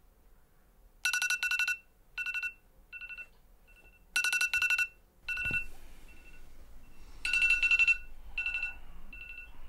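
iPhone alarm ringing: groups of quick electronic beeps about every three seconds, each loud group followed by fainter repeats of itself.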